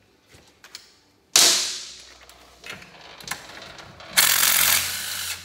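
DeWalt cordless impact wrench spinning out a 12 mm crankcase bolt on a Honda VT1100 engine case. It gives a short burst with a sudden start about a second in, then a longer burst lasting about a second near the end.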